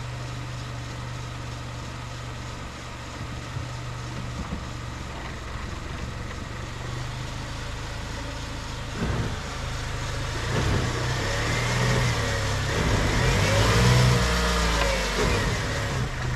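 Mercedes A150 (W169) four-cylinder engine running in gear with one front wheel jacked up. The raised wheel spins while the ESP keeps braking it, clicking and crunching. From about nine seconds in the sound grows louder, with rising and falling whines, and peaks near the end.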